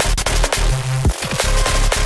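Breakbeat electronic music with loud, fast drums, a heavy bass and a distorted, crunchy main melody.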